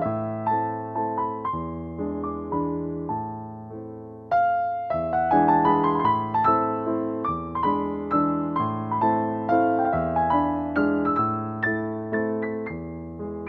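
Background piano music, gentle and unhurried, with notes struck and left to ring, and a brief pause about four seconds in.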